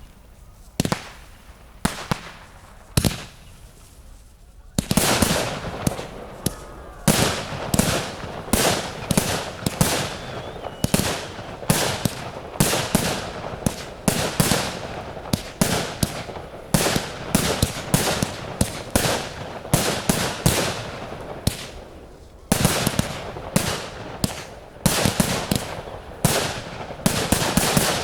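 Fireworks display: a few single bangs about a second apart, then from about five seconds in a rapid, continuous barrage of bangs and crackling, with a short lull about three-quarters of the way through.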